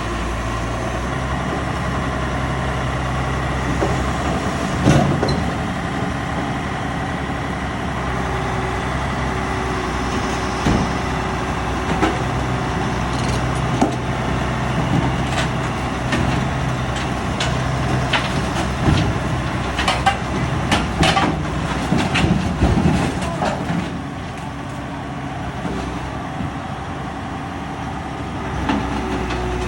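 Heavy diesel engine running steadily, with scattered metallic clanks and knocks that bunch together about two-thirds of the way through.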